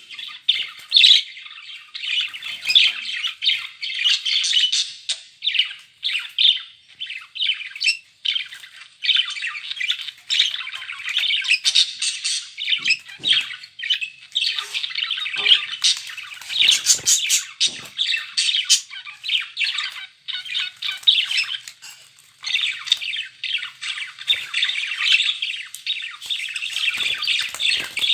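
Budgerigars chattering and warbling continuously, a dense stream of rapid chirps and squawky calls with a few brief pauses, and a few soft knocks now and then.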